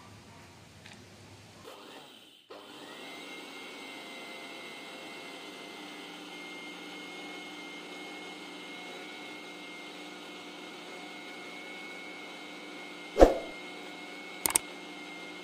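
Mixer grinder (mixie) motor running steadily with a high whine, grinding sugar and cocoa powder in its steel jar into a fine powder. It starts about two and a half seconds in with a brief rising whine as it spins up. There is a sharp knock about thirteen seconds in and a couple of clicks shortly after.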